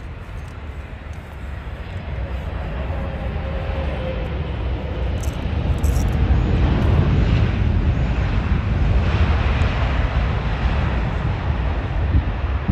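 Boeing 777 airliner landing: a deep jet-engine rumble that grows steadily louder as the plane touches down and rolls out along the runway, then stays loud.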